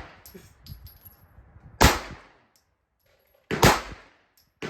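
Two Glock pistol shots about 1.8 seconds apart, each a sharp report with a short echo. A fainter shot follows near the end.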